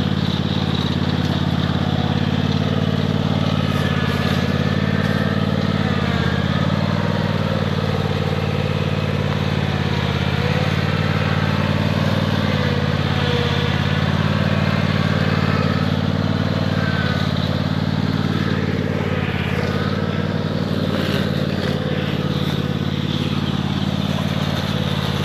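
Riding lawnmower engine running steadily at an even speed.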